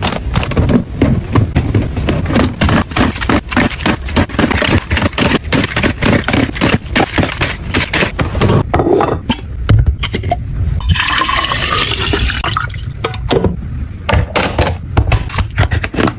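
Plastic and glass containers and bottles clattering and clinking as they are handled and set down while a fridge is restocked, with liquid poured into a container for about two seconds partway through.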